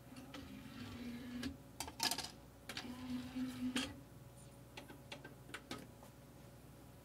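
A 1980s JVC CD player's disc drive whirring twice, each time for about a second, as it skips between tracks. Sharp mechanical clicks come between the two whirs, and a run of light ticks from the front-panel buttons follows.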